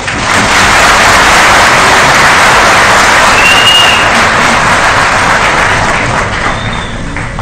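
Large auditorium audience applauding at the close of a speech. The clapping is steady and fades off near the end.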